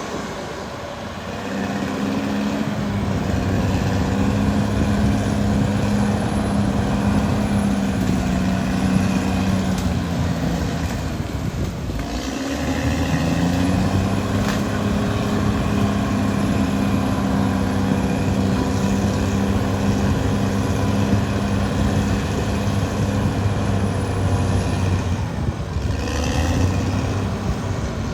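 Caterpillar D6R XL bulldozer's diesel engine running steadily under load. About halfway through, the engine note sags and then picks back up.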